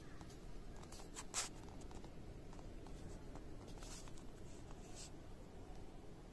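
African bullfrog gulping down a chick: a few faint, scattered wet clicks and smacks, the sharpest about a second and a half in.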